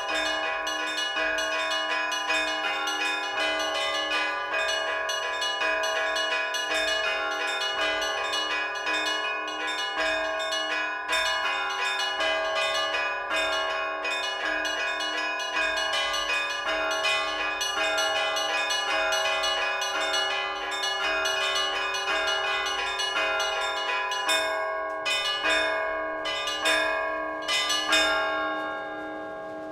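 Orthodox church bells rung from a belfry: rapid strikes on the small bells over the steady ringing of larger bells. Near the end the pattern thins to a few separate strikes, and the bells are left ringing away.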